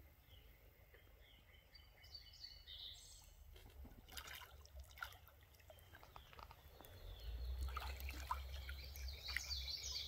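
A creek trickling, with birds chirping and a few short clicks about halfway through. A low rumble comes in about seven seconds in.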